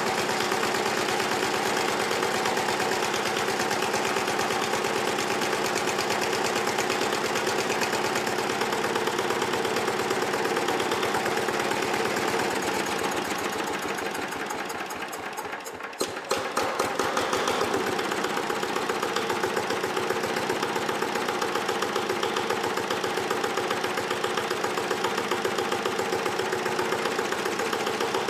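Small diesel engine driving a concrete mixer through a belt, running with a fast even beat. About twelve seconds in it slows and quietens for a few seconds, then picks back up to a steady run, as the throttle is adjusted at the engine.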